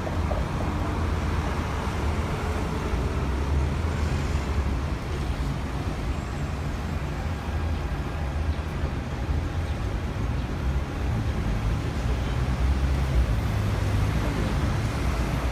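Steady roadway traffic noise at a busy city junction: a low rumble of cars, taxis, minibuses and buses idling and moving, with tyre hiss. It grows a little louder toward the end.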